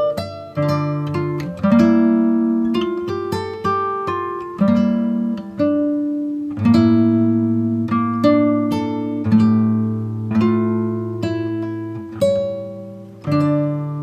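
Background music: a slow melody and chords picked on an acoustic guitar, each note ringing out and fading.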